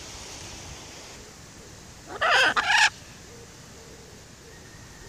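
Blue-and-yellow macaw giving a single loud squawk, in two quick parts, about two seconds in.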